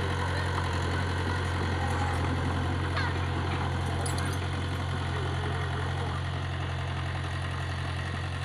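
Komatsu compact crawler excavator's diesel engine running at a steady, low hum while the machine tracks slowly forward, with a few faint squeaks and ticks over it.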